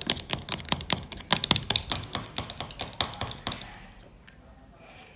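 Freshly mixed slime being poked and squished by fingers, making rapid, irregular sticky clicks that stop about three and a half seconds in.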